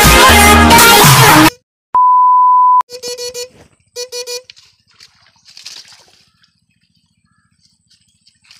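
Dance music that cuts off about a second and a half in, followed by a single steady electronic beep lasting under a second. Then two short buzzing bursts from a homemade electrofishing shocker as its two probe rods go into the creek water, with faint splashing afterwards.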